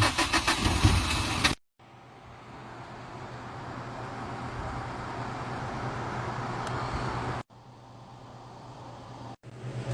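Vehicle noise: a steady rushing sound in three pieces separated by abrupt cuts. The longest piece swells slowly over about five seconds.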